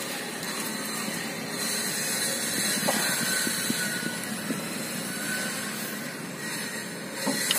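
Steady hiss of outdoor background noise, with a few faint clicks of a steel socket wrench being worked on a motorcycle's oil drain bolt.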